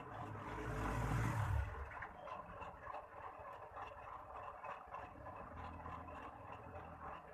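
Large radio-controlled truck running, with a brief swell of low rumble and hiss about a second in, then a steadier, quieter mechanical whir with light clatter.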